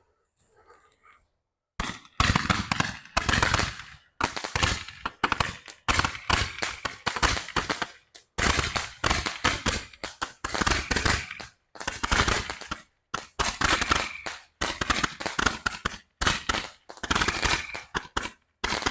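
Red Rhino Patriot Torch firework crackling: dense, rapid popping like machine-gun fire, in bursts of one to two seconds with short breaks between them, starting about two seconds in.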